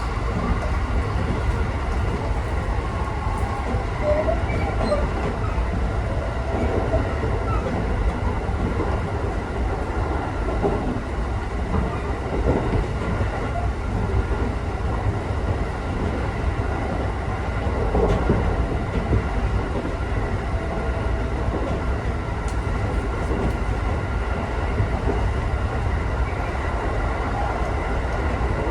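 Inside the cabin of a local electric multiple-unit train running at speed: a steady rumble of the wheels on the rails, with a few faint steady tones above it.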